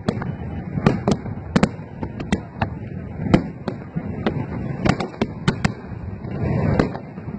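Aerial fireworks shells bursting: many sharp bangs at irregular intervals, about two a second, over a constant background noise.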